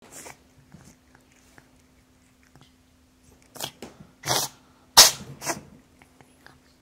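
A cat sneezing: one sneeze at the start, then a quick run of four sneezes, the loudest about five seconds in. It is a sign of the upper respiratory infection that the owner suspects.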